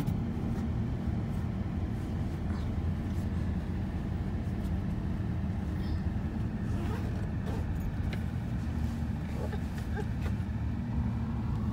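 Steady low road and engine rumble inside a moving car's cabin.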